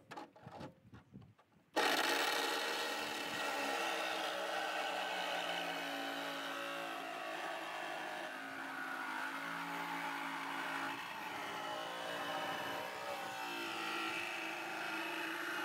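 A few light knocks, then about two seconds in a power saw starts abruptly and runs steadily, its pitch wavering as it cuts through the car's sheet-metal floor structure.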